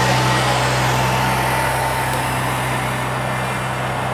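Steady low hum under an even rushing background noise, with a faint thin tone above it; no speech.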